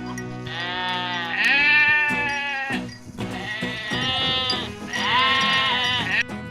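Goat bleating: about four long, wavering bleats in a row, over background music.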